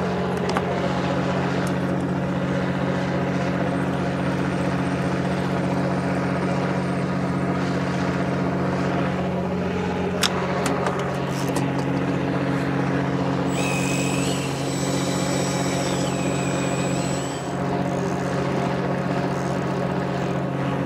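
Fishing boat's engine running with a steady, unchanging drone. A thin high whine joins for about three seconds past the middle.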